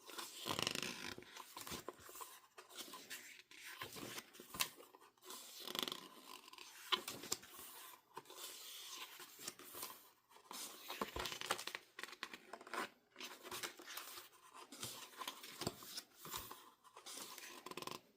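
Irregular rustling, scraping and crinkling of paper and plastic as album packaging and its inclusions are handled, in short uneven bursts.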